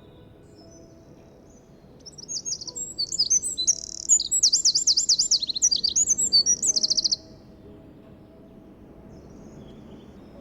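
A Eurasian wren sings one long, loud song phrase of rapid high trills and warbles. It starts about two seconds in and cuts off abruptly near the end, lasting about five seconds.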